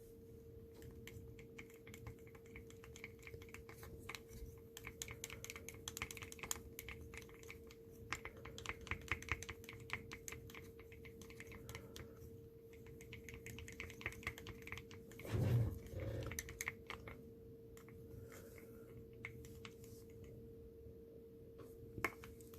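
Light, irregular clicking and tapping of small hobby tools and containers while hobby paint is mixed, over a faint steady hum. About fifteen seconds in there is one louder, dull bump.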